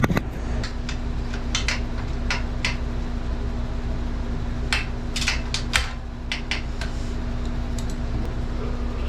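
Scattered metal clicks and clinks of hand tools and loose engine parts while a pit bike's motor is worked free of its frame, over a steady low hum. The clicks come in short clusters.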